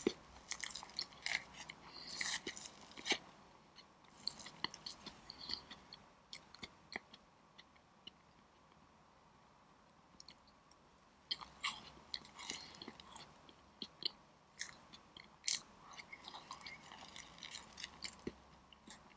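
Close-miked chewing of soft layered cream cake, with many small wet mouth clicks and smacks. The sounds thin out to a quieter stretch in the middle, then pick up again.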